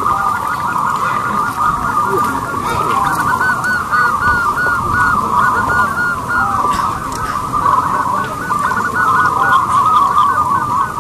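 Zebra dove (perkutut) cooing: a dense, unbroken run of short repeated notes.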